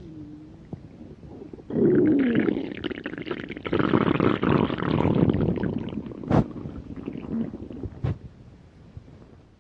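Hungry human stomach growling: a long gurgling rumble that starts suddenly about two seconds in, with a brief squeaky falling whine at its start, then fades away. Two sharp clicks come in its later part.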